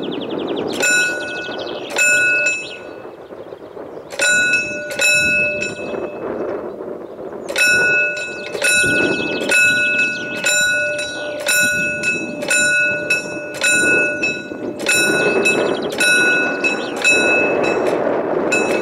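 Warning bell of an old mechanical railway-crossing barrier ringing in runs of sharp metallic strokes, roughly two a second, with short pauses between runs. A low rattle runs underneath.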